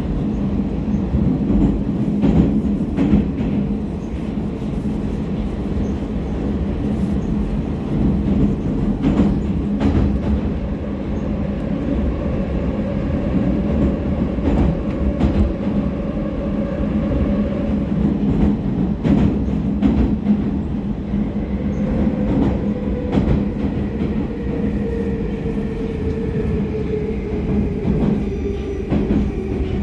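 Inside an 81-726.1 "Baltiets" metro car running through the tunnel: a steady rumble and hum with scattered clacks from the wheels on the rails. In the last third, the motor whine falls slowly in pitch as the train brakes into the station.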